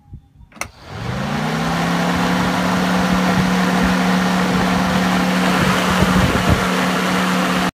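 Holden VY LS1 V8 electric radiator fan running on high speed, bench-tested: a sharp click, then the motor spins up within about a second to a steady hum under a loud rush of air from the blades.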